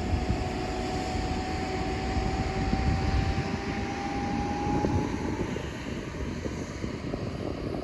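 Wind buffeting the microphone over a steady low rumble on an aircraft carrier's flight deck. A thin high whine, rising slightly in pitch, fades out about five seconds in.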